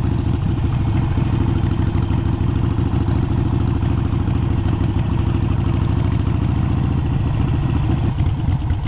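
Harley-Davidson Sportster V-twin engine, bored out to 1275 cc with a big-bore kit and still in its break-in, running at a steady speed.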